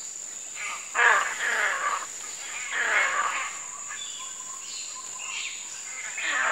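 Proboscis monkeys giving short calls that fall in pitch: a pair about a second in, another around three seconds in, and one near the end. A steady high-pitched drone of jungle insects runs underneath.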